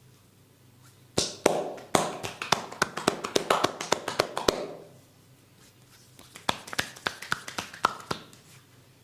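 Rapid percussive hand strikes of a massage on the body, several sharp slaps a second. They come in two bouts: a longer one starting about a second in, and a shorter one about six seconds in.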